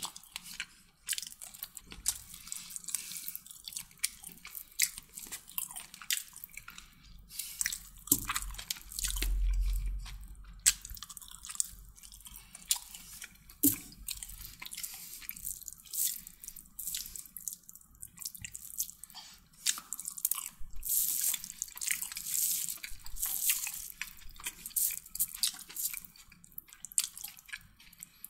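Close-up eating sounds of a person chewing chicken kottu: wet chewing, lip smacks and small mouth clicks, irregular and continuous, with a dull low bump about nine seconds in.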